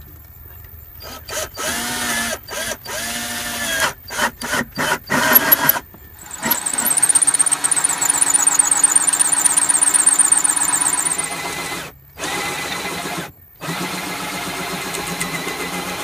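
Ryobi cordless drill cutting a hole through a wood panel with a hole saw. It starts with several short trigger pulls, the motor speeding up and slowing each time, then runs in a long steady cut with a high wavering whine. Near the end it stops briefly twice.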